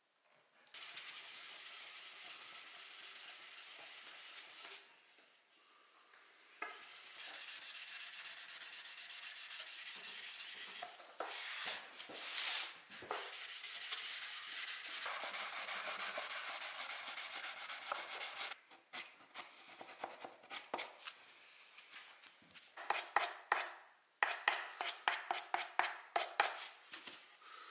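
Wood being sanded by hand with sandpaper: long, steady rubbing strokes in several stretches, then quick short back-and-forth strokes near the end.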